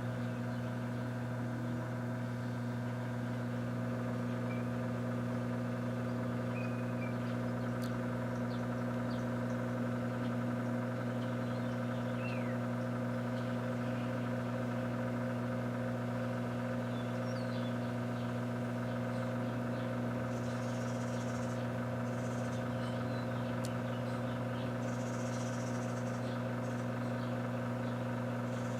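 Microwave oven running with a steady electrical hum, with a light bulb being microwaved inside. Faint crackles and two brief hissing spells come through now and then.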